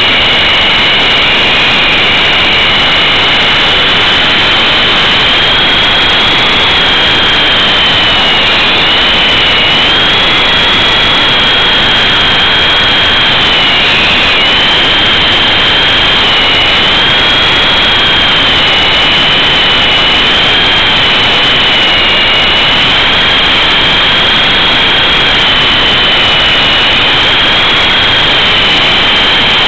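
Electric motors and coaxial rotors of an E-sky Big Lama RC helicopter in flight, heard from a camera riding on it: a loud high whine that wavers up and down in pitch every few seconds as the motor speed changes, over a steady rush of rotor wash.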